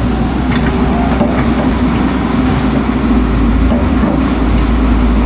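Steady vehicle rumble, continuous and even, with a strong low-pitched component.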